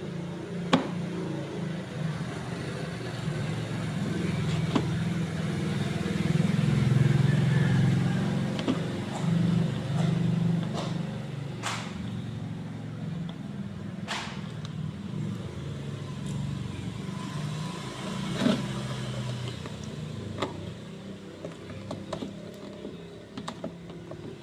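A car's engine running steadily with a low hum that swells a few seconds in and then eases off, with several sharp clicks and knocks scattered throughout.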